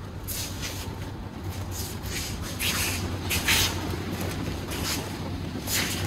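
Several short swishing rustles of movement during aikido practice, over a steady low rumble.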